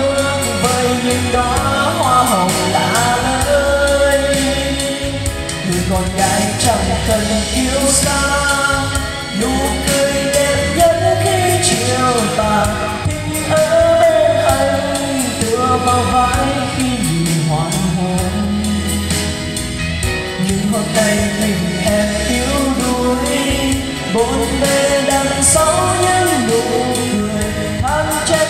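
Karaoke music with heavy bass playing through an NT 1508 trolley karaoke speaker with twin 40 cm bass drivers, and a man singing over it into a wireless microphone.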